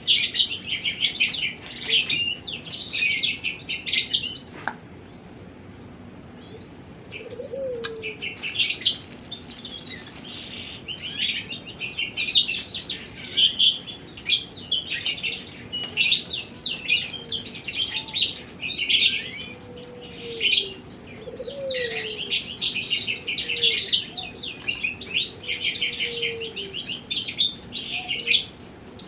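Birds chirping rapidly in dense, repeated bursts of high notes. There is a pause of a few seconds early on. A few faint, low, dove-like coos are mixed in.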